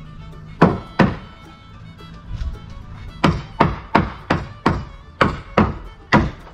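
Hammer driving nails into the wooden framing of an old pop-up camper: two blows about half a second apart, then a steady run of about nine blows, roughly three a second, through the second half.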